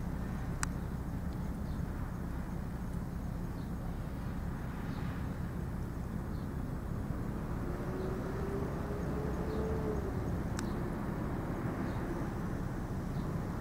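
Steady low outdoor background rumble, with two sharp clicks, one just after the start and one about ten seconds in.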